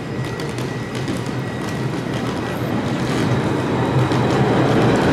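Low-floor electric tram approaching on street-running track, its rumble and hum growing steadily louder as it draws nearer.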